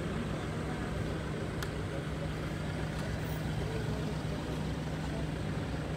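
Steady low hum of an engine running at idle, with a constant low tone and a light tick about a second and a half in.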